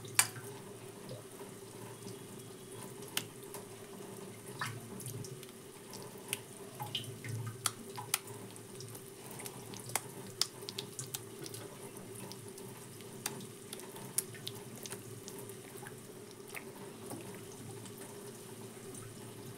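Pot of hot water holding chicken meatballs: faint water sounds with scattered light ticks and pops over a steady low hum.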